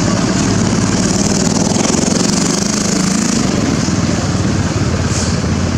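A small engine running steadily, a constant low drone.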